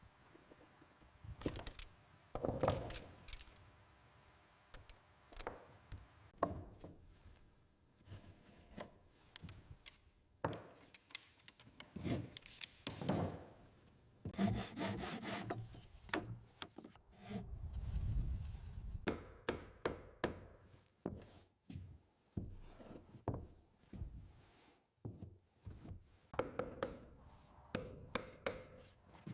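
Hand tools working wood: irregular rubbing and scraping strokes with sharp knocks in between, and a heavier thud about two-thirds of the way through.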